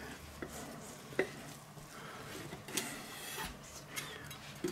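Chef's knife sawing through the glazed bacon crust of a bacon bomb on a wooden cutting board: a low scraping, rasping noise with a few light clicks.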